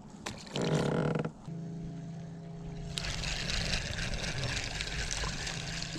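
Bass boat's electric trolling motor running with a steady low hum, briefly louder at first, then settling about a second and a half in. A soft hiss joins it about halfway through.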